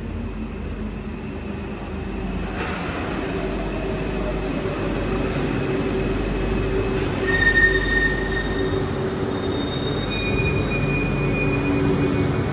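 Alstom MP05 metro train pulling into the station: a low rumble that grows louder as it arrives, with several short high-pitched squeals in the second half as it slows to a stop.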